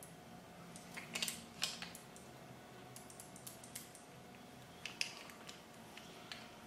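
Faint, scattered small clicks and taps from hands handling a PM7 paintball marker's frame and eye-sensor ribbon cable, over a faint steady hum.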